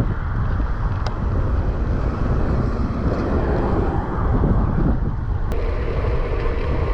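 Wind buffeting the microphone of a camera on a moving bicycle: a steady low rumble of rushing air. About five and a half seconds in, a faint steady hum joins it.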